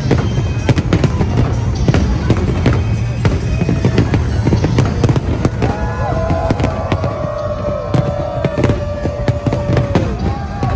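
Dense barrage of aerial firework shells bursting: many sharp bangs in quick succession over a continuous low rumble.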